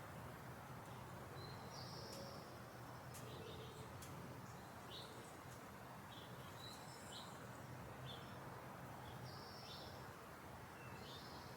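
Faint garden birds chirping: short, high calls repeated about once a second, over a steady low hum of background noise.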